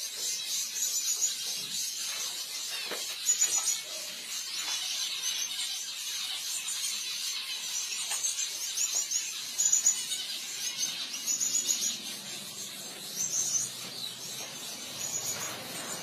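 Many caged Gouldian finches chirping: short, high calls every second or so.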